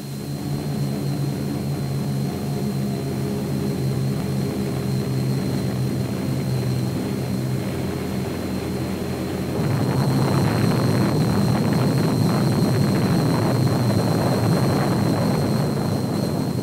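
Steady drone of a four-engine B-29 Superfortress's radial engines and propellers in flight. About ten seconds in it gives way to a louder, deep rumble of the atomic bomb blast.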